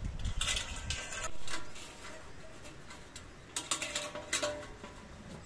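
Metal clinks and knocks from a round metal pan, its lid and the tripod's hanging chains being handled. There are a few clicks in the first second, then a quick cluster of knocks with a brief ring about three and a half seconds in.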